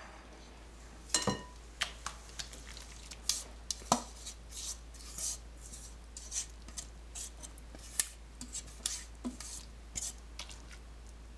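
A spoon scraping and clinking against a stainless steel mixing bowl as grated apple is tipped and scraped out into a glass bowl. Scattered sharp clicks and short scrapes come at irregular intervals.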